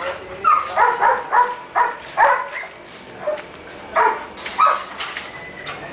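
A dog barking repeatedly in short, sharp barks, several in quick succession, a brief pause about three seconds in, then more barks.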